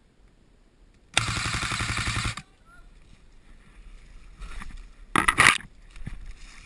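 Airsoft MP5 firing one rapid full-auto burst of about a second, a fast even rattle of shots. About five seconds in there is a second, shorter loud noise that is less regular.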